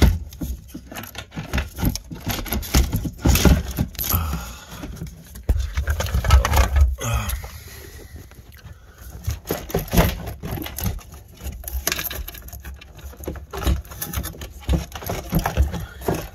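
Irregular clicks, knocks and scrapes as an Audi A8/S8 D2's fuel pump and sender assembly is wiggled and twisted to free it from the fuel tank opening, with a low rumble of handling noise underneath.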